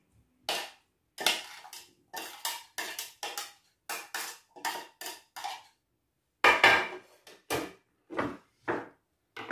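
A run of quick, sharp knocks and clatters as chopped tomatoes and peppers are tipped from a plastic tray into a glass salad bowl. There is a short pause about six seconds in, followed by a few louder knocks.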